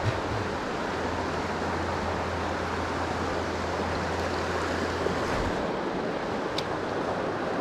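Shallow river running over rocks: a steady rushing of water.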